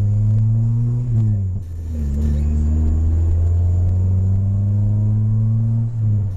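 Acura Integra four-cylinder engine pulling under way, its note climbing slowly as the car accelerates. Twice the sound dips and the pitch falls, once about a second in and again near the end, as the driver shifts up through the freshly installed stage 2 clutch.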